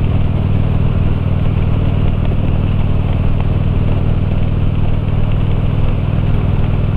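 Harley-Davidson V-twin motorcycle engine running steadily while riding at an even speed, with no change in pitch.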